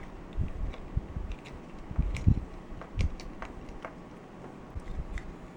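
Scattered small clicks and light knocks of a partly disassembled Canon PowerShot digital camera being handled and worked on, with a couple of duller thumps about two seconds in.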